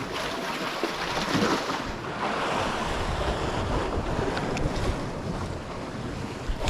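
Sea waves washing against a rocky shore, with a swell of surf about two seconds in, and wind buffeting the microphone.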